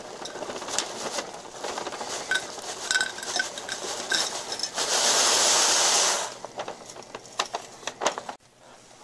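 Dried spruce pitch crumbs poured from a folded sheet of paper into a tin can, rattling and pattering against the metal while the paper rustles. A heavier rush of pitch comes about five seconds in, then a few scattered clicks as the last pieces drop.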